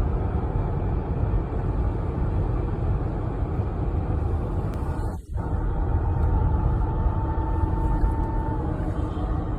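Road traffic rumbling steadily, with a brief drop about five seconds in. In the second half a faint, held tone of a fire engine's siren starts to come through the traffic noise.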